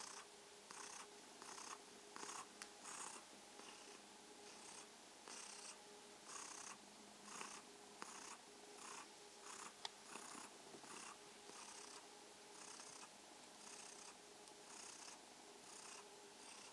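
A tabby cat purring softly, the purr swelling and fading in a steady rhythm with each breath in and out. One small click about ten seconds in.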